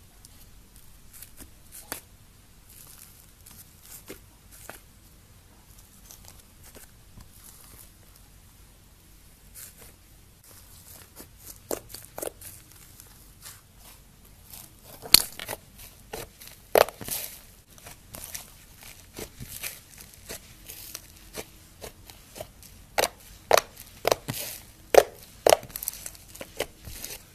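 Slime being pressed, stretched and squeezed by hand, making wet crackles and sharp clicking pops. The pops are faint and scattered at first, then grow louder and come in quick runs in the second half.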